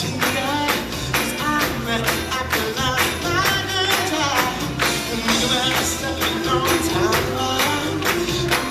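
Live pop band music with a steady beat, a tambourine-like rhythm and sung vocals.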